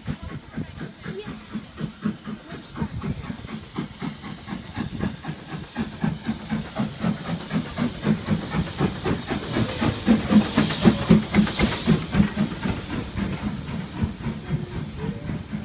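Small steam tank locomotive drawing its coaches into a station. A fast, even run of knocks builds with a hiss of steam, loudest as the engine passes about ten seconds in, then eases as the coaches roll by.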